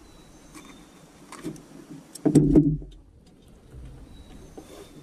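Handling noises as a freshly landed largemouth bass is unhooked in a small boat: scattered light clicks and knocks, with one louder bump about halfway through.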